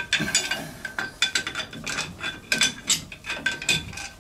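Irregular metallic clinks and rattles of a steel wrench being tried against the fittings of a steam engine's crosshead and connecting rod, some strikes ringing briefly.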